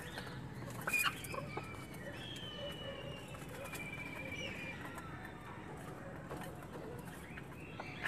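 Desi golden Misri hens feeding: quiet clucking and thin, high drawn-out calls, with a few sharp taps about a second in.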